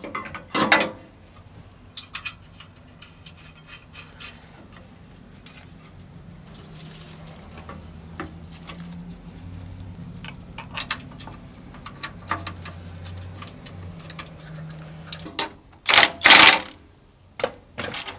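Small metal clinks and knocks of a steel bracket and its bolts being handled and fitted. Near the end a ratchet wrench is worked, with a few loud bursts of clicking, snugging the bolts down.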